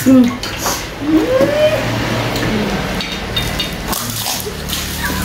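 Pani puri being eaten: crisp puri shells cracked open and dipped into a bowl of spiced water, with wet squishing and chewing. A short rising vocal sound comes about a second in.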